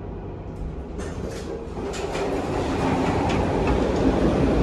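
Subway train rumbling in the station, getting louder from about two seconds in, with a few light clicks and rattles over it.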